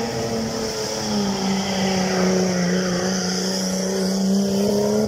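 Stripped-down 4x4 race buggy's engine running hard under load as it ploughs through a muddy water pit. The engine note holds steady, dipping slightly about a second in.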